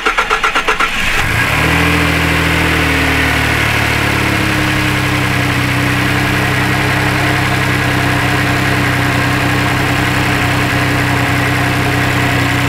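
Ford 3.5L EcoBoost twin-turbo V6 being cranked by its starter for about a second, then catching, flaring up and settling into a steady idle over the next few seconds. This is the first start after a high-pressure fuel pump replacement.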